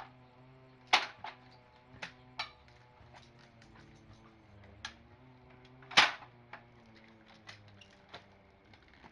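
Irregular sharp knocks and clicks, the loudest about a second in and another about six seconds in, with fainter ones scattered between.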